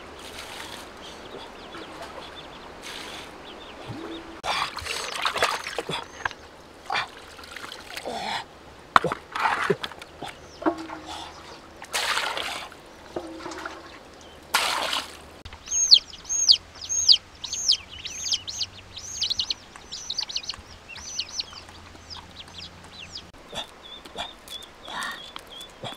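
Water scooped from a large clay jar and poured over fish in a pot, splashing in several bursts. Then a bird cheeps rapidly, about two short high falling calls a second, for several seconds. A few light clicks near the end as garlic cloves drop into a stone mortar.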